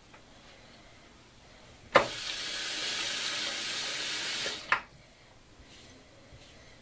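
Bathroom sink tap turned on with a click, water running for nearly three seconds, then shut off with another click.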